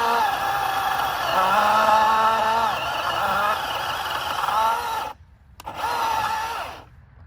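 Milwaukee Fuel battery chainsaw cutting into a thick limb, its electric motor whining and dipping in pitch as the chain loads up in the cut. It stops for about half a second about five seconds in, runs again briefly, then stops near the end.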